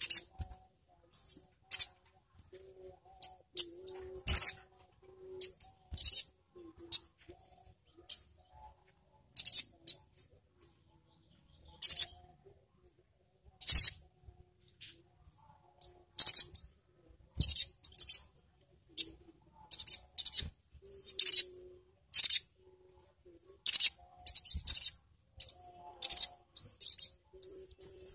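Male olive-backed sunbird calling: short, sharp, high-pitched chirps in irregular bursts, coming more rapidly toward the end.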